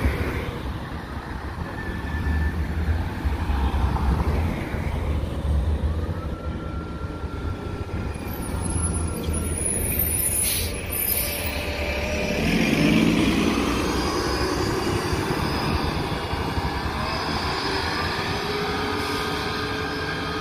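A city transit bus passing close by with a low engine rumble. About ten seconds in there is a short hiss of air, then the engine revs with a rising tone and a whine as the bus pulls away.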